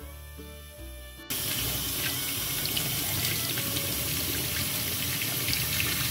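Kitchen tap running onto curly parsley rinsed by hand in a stainless steel sink; the water comes on suddenly about a second in and runs steadily. Background music plays before the water starts.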